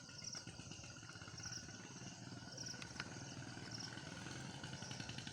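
Faint outdoor background: insects chirping in short high pulses about once a second over a low steady hum.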